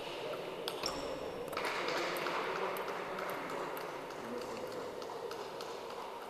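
Table tennis ball clicking off paddles and the table in a reverberant sports hall, a few sharp hits near the start as a rally ends, then a hissing rush of noise about a second and a half in. Faint clicks from play at other tables continue throughout.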